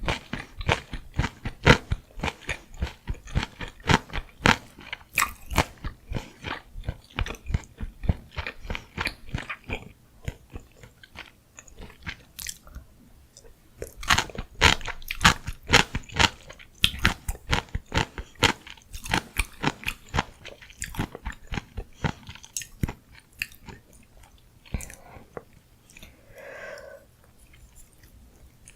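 Close-miked chewing of gimbap: rapid runs of crunchy, wet bites and chews. The chewing eases off about ten seconds in, picks up again a few seconds later, and thins out near the end.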